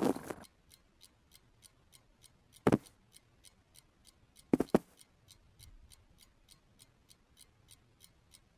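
Clock ticking steadily, about four ticks a second. One sharp knock about a third of the way in and a quick double knock a little past the middle.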